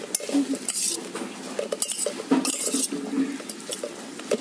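A spoon stirring and scraping through chopped salad vegetables in a steel bowl, with clinks of metal on metal and several louder scrapes, the loudest a little past halfway.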